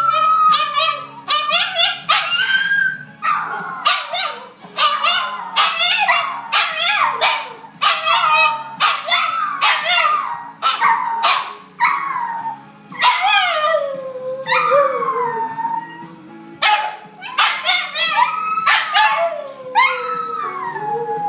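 Two terriers yapping and barking excitedly, with long whining howls that fall in pitch in between: the excitement of dogs expecting a walk.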